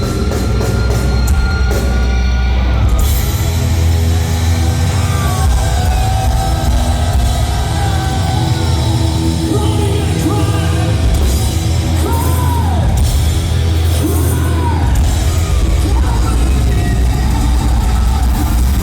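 A thrash metal band playing live and loud, with distorted guitars over a heavy low end and yelled vocals or crowd shouts.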